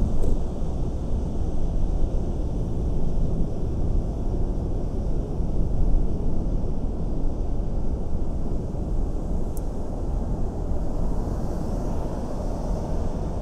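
A car driving, heard as a steady, even low rumble of road and running noise with no distinct events.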